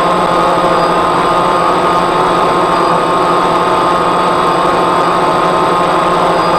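DJI Phantom quadcopter's electric motors and propellers running steadily while it hovers at altitude, heard close up through the onboard camera: a dense, even buzzing whine of many tones that holds at a constant pitch.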